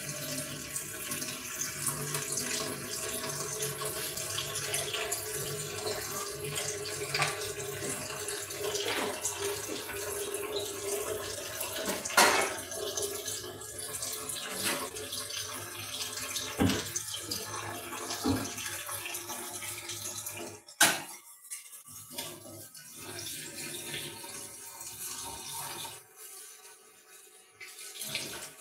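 Running water in a kitchen, with dishes and utensils knocking now and then; the loudest sharp knocks come about twelve and twenty-one seconds in, and the sound drops low for a couple of seconds near the end.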